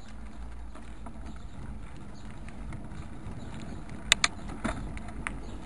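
Steady low rumble of rolling along rough, potholed asphalt, with a few sharp knocks and rattles starting about four seconds in as the ride jolts over bumps.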